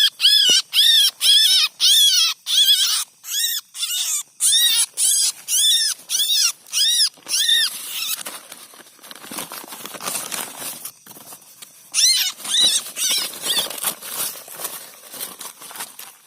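A bird calling loudly in a rapid series of rise-and-fall notes, about two a second, recorded to be used as a lure call. The calls break off after about eight seconds into a rougher, noisier stretch, then a faster run of calls starts near the end.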